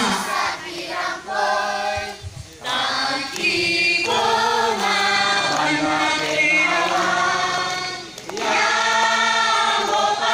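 Choir of children singing, in phrases of held notes with short breaks for breath about two seconds and eight seconds in.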